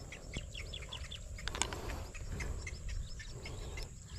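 Small birds chirping in quick, repeated short notes, with one sharp click about a second and a half in and a low rumble underneath.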